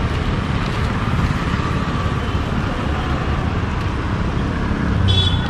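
Street traffic: motorcycles and auto-rickshaws running past in a steady rumble, with a short high-pitched horn beep near the end.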